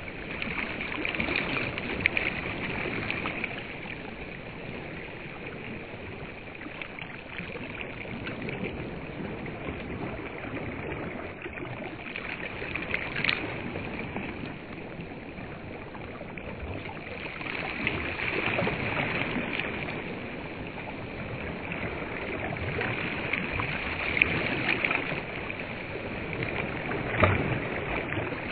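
Small waves lapping on a sandy reservoir shore, the wash swelling and fading every few seconds, with a few faint ticks.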